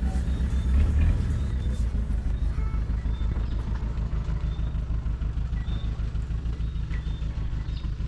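An engine running steadily with a fast, even low pulse, a little louder about a second in. A few short high chirps sound over it.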